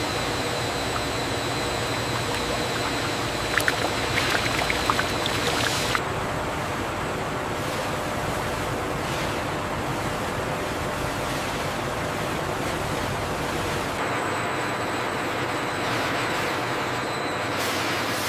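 Liquid pouring in a thick stream into a large stainless steel tank: a steady rushing splash, with a few crackling pops a few seconds in.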